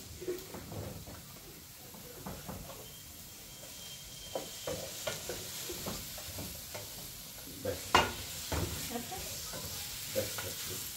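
Onions sizzling in hot oil in a pot, stirred with a spoon, with scattered clinks of utensils against metal; a sharp clink about eight seconds in is the loudest.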